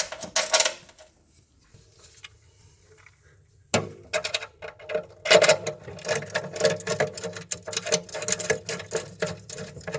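Metal drawer slide rails and their bolts being fitted by hand: a short rattle of clicks, a quieter pause, then a sharp knock about four seconds in and a dense run of rapid metallic clicking and rattling.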